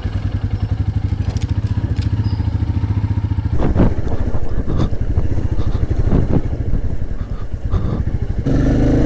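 Royal Enfield Meteor 350's single-cylinder engine thumping steadily at low riding speed, with a few brief rises in revs midway and the engine picking up revs near the end.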